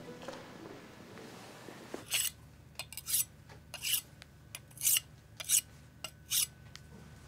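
Knife blade drawn across a handheld sharpening stone: about six long rasping strokes, one a little under every second, starting about two seconds in, with lighter scrapes and ticks between them. Faint music fades out at the start.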